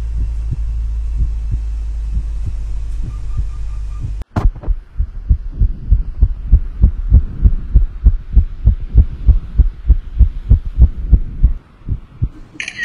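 A steady low hum that cuts off sharply about four seconds in, then a fast, even, pounding heartbeat-like thumping, about three beats a second, which drops away near the end.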